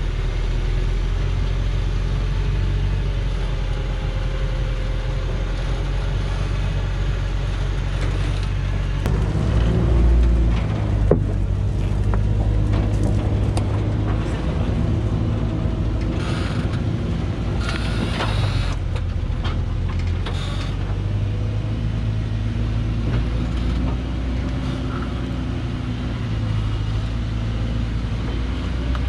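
Diesel engine of an old Thaco Forland log truck running slowly under a heavy load as it crawls down a steep dirt slope, a steady low rumble. A sharp knock comes about a third of the way in, and two short hissing bursts follow past the middle.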